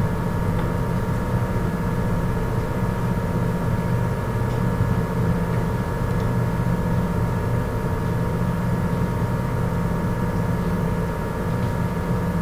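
Steady machine hum with a few constant whining tones over it, unchanging throughout.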